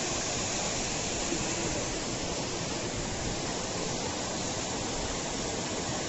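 Waterfall pouring down a rock face, a steady, even rushing of water.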